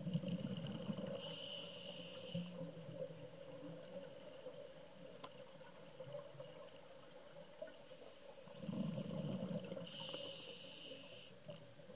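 Scuba diver breathing through a regulator, heard underwater: short hissing inhales and a bubbly exhale rumble at the start and again about nine seconds in, over a faint steady hum.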